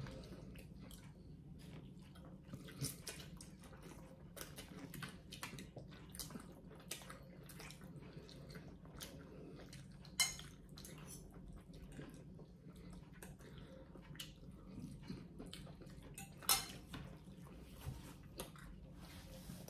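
Metal spoons and forks clinking and scraping against ceramic bowls of pho, a run of soft clicks with two sharper clinks, one about halfway through and one near the end.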